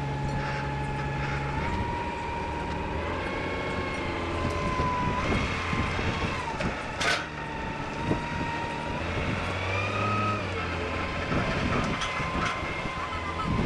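A machine running with a steady whine that steps up and down in pitch over a low hum, with a sharp knock about halfway through.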